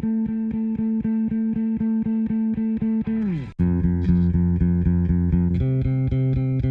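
Guitar played through the all-tube Plutonium, picking fast repeated notes about five times a second. About three seconds in the pitch dives sharply down and cuts off for an instant. The riff then carries on in lower notes that step down twice.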